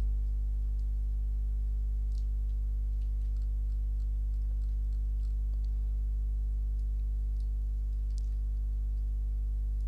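Steady low electrical hum, with scattered faint clicks of a computer mouse and keyboard as a text document is scrolled and edited.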